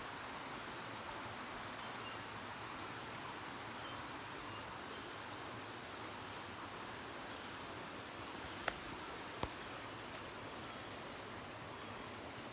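Steady high-pitched insect drone over a faint outdoor hiss, broken by two sharp clicks less than a second apart about two-thirds of the way through.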